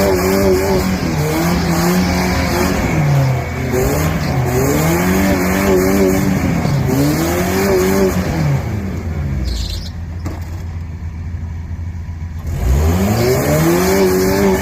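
Engine revving up and down over and over, its pitch rising and falling in arcs every two or three seconds, dropping back to a lower, quieter run for a few seconds near the end before revving again.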